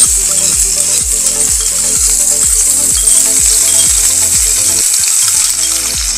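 Crushed garlic, ginger and green chilli paste sizzling loudly in hot mustard oil in a kadhai, a steady hiss. A steady beat of background music plays underneath.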